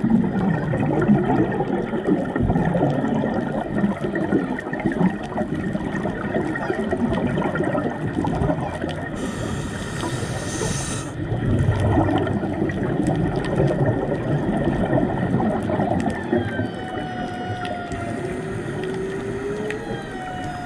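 Underwater ambience on a diver's camera: a steady crackling, gurgling wash. A brief hiss comes about halfway through. Humpback whale song comes in near the end as a few long sliding calls, some falling and one rising.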